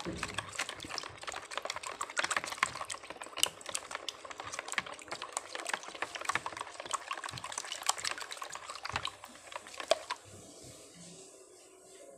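Plastic spoon rapidly beating a runny egg, sugar and milk mixture in a plastic bowl: a quick, continuous clatter of spoon against bowl with liquid sloshing, stopping about ten seconds in.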